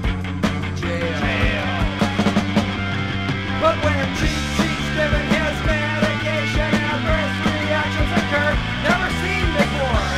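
Punk rock song with a steady drum beat, played back from a vinyl record.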